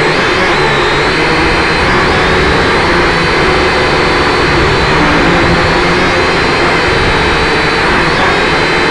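Small electric motors whining steadily close to the microphone, their pitch wavering slightly up and down together, over a loud hiss.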